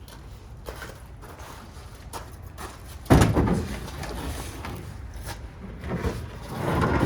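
A sudden heavy wooden knock about three seconds in, then rough scraping and bumping as a homemade plywood toolbox section is shifted into place in a pickup truck bed.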